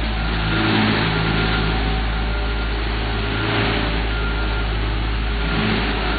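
Heavy engines of an asphalt paving machine and the construction equipment working with it, running with a steady low drone.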